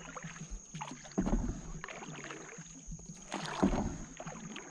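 Small wooden boat being paddled on a calm river: two paddle strokes through the water, about a second in and again near three and a half seconds.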